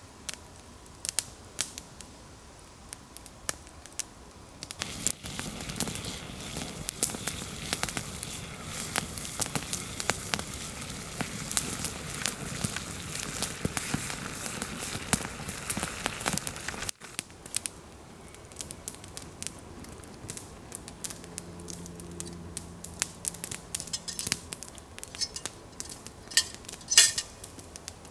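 Campfire of damp wood crackling with many sharp pops and snaps, with a denser steady hiss of flames for the middle stretch and one loud snap near the end.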